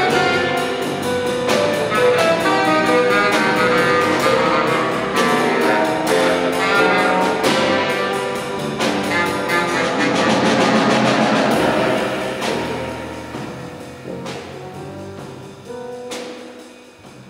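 Jazz quartet of saxophone, piano, bass and drum kit playing a dense, loud passage full of drum and cymbal hits, which thins out and gets steadily quieter over the last few seconds.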